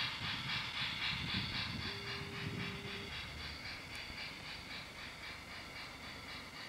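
Toy steam-locomotive sound effect from a battery-powered BRIO Mighty Red Action Locomotive: rapid, even chuffing that slowly fades.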